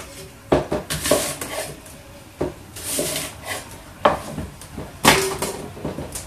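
Kitchen knife cutting apples and pears on a wooden cutting board: about half a dozen sharp, irregular knocks as the blade goes through the fruit and hits the board, with scraping of the blade between them.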